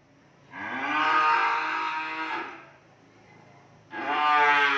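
A cow mooing twice: one long call of about two seconds, its pitch rising at the start and then held, and a second moo starting near the end.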